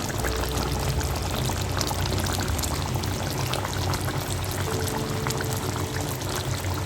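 Chicken curry with potatoes simmering in a pan over a medium flame, a dense steady crackle of small sizzling pops and bubbles over a low hum.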